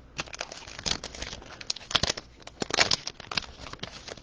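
A trading-card pack wrapper crinkling and tearing as it is ripped open by hand, a run of irregular sharp crackles.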